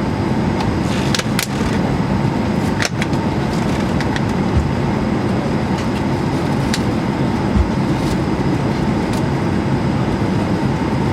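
Steady cabin noise of an Airbus A220-300 airliner, its air-conditioning and systems running, with a few short sharp clicks.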